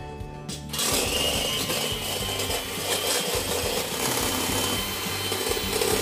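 Electric hand mixer starting up just under a second in and then running steadily with a high whine, its beaters whirring through egg white in a stainless steel bowl as it is whisked to soft peaks.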